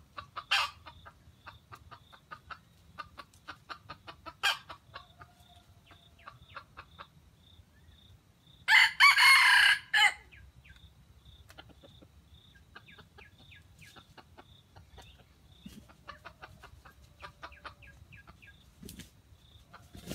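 Red junglefowl rooster crowing once, a short loud crow about nine seconds in, with soft clucking calls scattered before and after.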